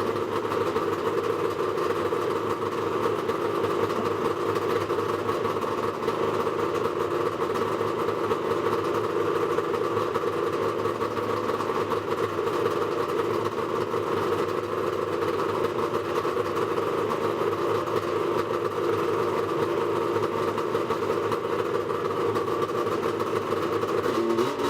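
Yamaha Mountain Max 700's three-cylinder two-stroke engine idling steadily through SLP triple pipes.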